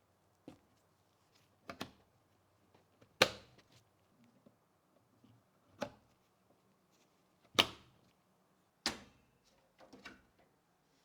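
Sharp clicks and knocks from computer parts being handled and fitted during a PC build, about seven at irregular intervals, the loudest about three seconds in and again past seven seconds.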